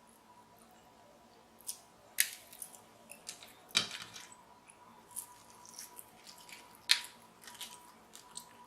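Regular household scissors snipping through king crab leg shell: a few sharp, crackling snips, the loudest about two, four and seven seconds in.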